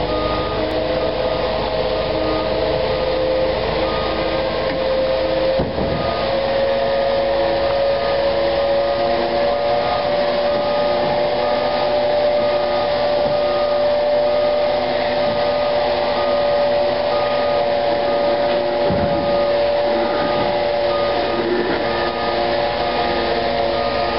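Concrete mixer truck reversing slowly: the engine runs with a steady whine that rises slightly in pitch over the first ten seconds, over the repeated beeping of its back-up alarm.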